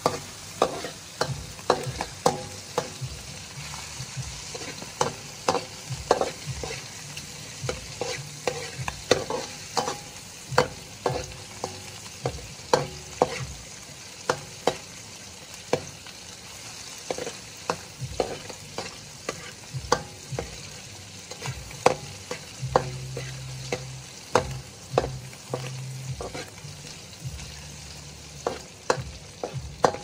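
Metal ladle scraping and clinking against a steel wok, in irregular strokes about once or twice a second, while chopped aromatics sizzle steadily in hot oil.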